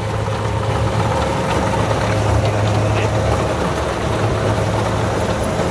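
Kubota DC60 combine harvester's diesel engine running steadily: a low drone with a thin, steady whine above it.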